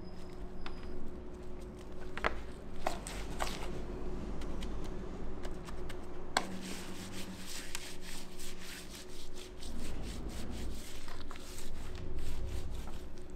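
Hands rubbing and scraping as a slab of pork for homemade Duroc bacon is coated with maple syrup and a dry rub, with scattered light clicks and knocks. A thin steady hum runs underneath.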